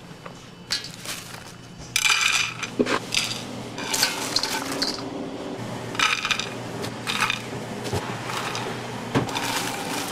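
Dried red chilies and fresh green chilies being handled in a stainless steel bowl and on a ceramic plate: crisp rustling and clinks of the plate and bowl, in several short bursts, over a steady low hum.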